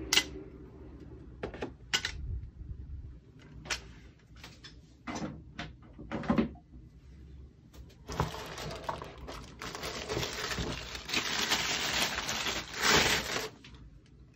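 Scattered knocks and clicks as the espresso press's lever and frame parts are handled, followed by several seconds of plastic wrap crinkling as a part is pulled out of its bag, which stops shortly before the end.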